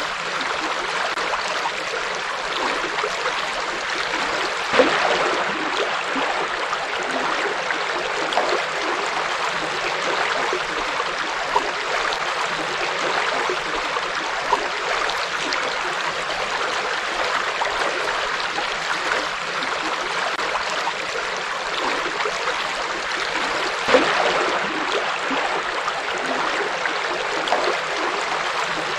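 A forest river flowing steadily with a continuous rush of water, with brief louder splashes about five seconds in and again near the end.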